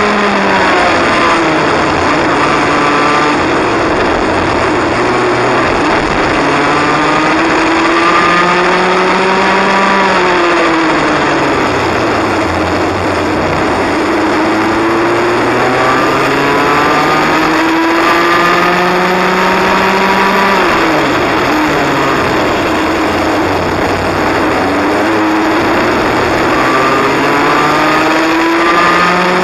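Cadet kart's small engine heard from on board, revving up steadily along the straights and dropping back sharply as it lifts off for the corners, about four or five times over.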